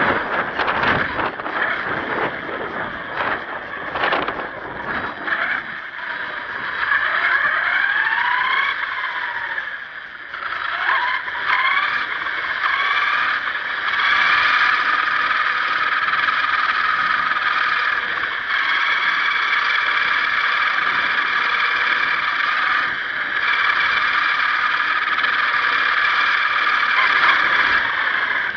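1/10-scale HSP radio-controlled monster truck driving, heard from a camera mounted on the truck. Its motor and drivetrain give a high whine that rises in pitch several times as the truck speeds up, then holds steady through the second half. There are rattles and knocks from bumps in the first few seconds.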